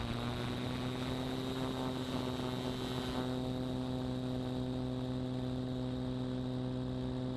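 Beechcraft Bonanza's piston engine and propeller at full power on a maximum-effort takeoff roll: a steady hum whose tone grows fuller about three seconds in.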